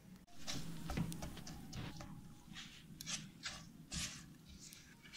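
Silicone spatula stirring milk and crushed chocolate in a non-stick pan, making soft, repeated scraping and swishing strokes at an uneven pace.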